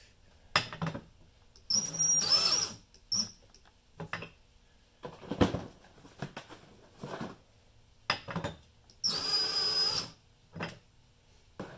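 DeWalt cordless drill running in two short bursts of about a second each, about two seconds in and again about nine seconds in, with a steady high whine as it turns the bottle labeler's rollers through a threaded rod. Short knocks and clunks come in between the bursts.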